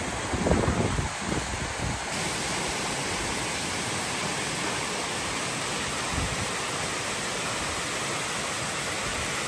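Abai-Su waterfall, a large mountain waterfall, giving a steady, even rush of falling water. A few low thumps break into it in the first two seconds, then it holds constant.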